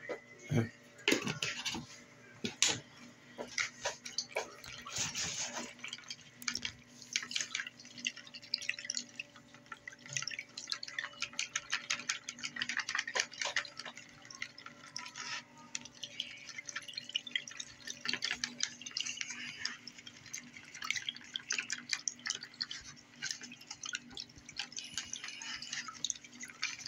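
Small green silicone-coated whisk beating mayonnaise into lime juice in a plastic container: rapid, irregular wet clicks and taps of the whisk against the container as the mixture turns creamy.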